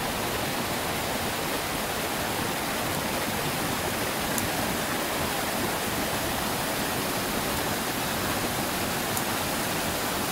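Steady rush of a waterfall and the whitewater rapids below it: an unbroken, even roar of falling and churning water.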